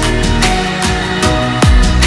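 Background electronic dance music with a steady, heavy kick-drum beat.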